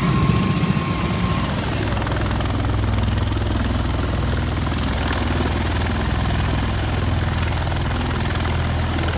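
Bell Boeing MV-22 Osprey tiltrotor running on the ground with its proprotors turning in helicopter mode, a steady low rotor and engine hum.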